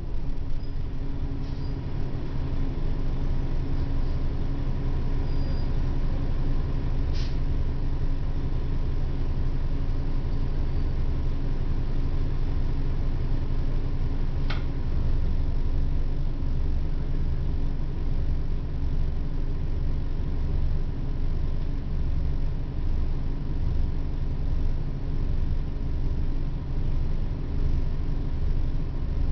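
Cabin sound of a 1996 Orion V transit bus: the engine running steadily with a low hum and a faint steady high tone, and two brief clicks, about seven and fourteen seconds in.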